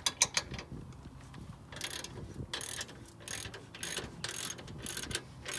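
Hand ratchet with a 22 mm socket being worked back and forth on a front lower control arm bolt, its pawl clicking in short runs on each return stroke, about one run every half second to second. The nut is already broken loose and turns freely.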